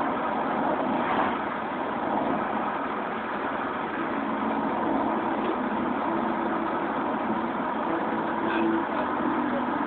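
Car driving along a road, with steady engine and road noise. An engine hum comes up about four seconds in and holds steady.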